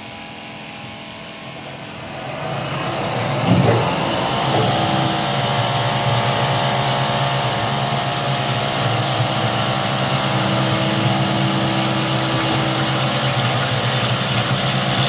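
Homemade CNC milling machine cutting a plate with an end mill under flood coolant. The sound builds over the first few seconds, jumps sharply about three and a half seconds in, then runs steadily as a machine whine with several steady tones over a hiss.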